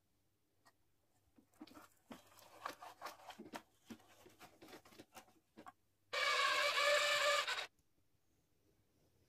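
Rusty die-cast toy car clicking and scraping in a run of small irregular knocks and rubs as it is moved over a plastic ramp and tabletop. About six seconds in, a loud steady high-pitched whine lasts about a second and a half, then stops abruptly.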